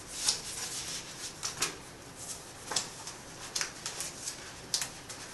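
Rolled poster being slid into a cardboard carrying tube: scattered light rustles, scrapes and soft knocks, about half a dozen short ones.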